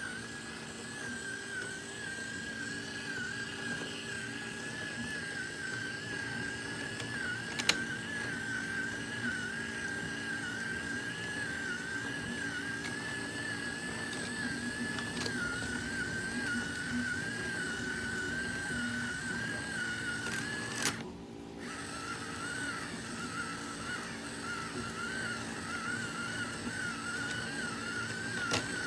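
Small electric motor driving a 3D-printed plastic gearbox, running with a steady whine that wavers slightly in pitch. A sharp click comes about eight seconds in. About three quarters of the way through there is a brief break, after which the whine settles a little lower.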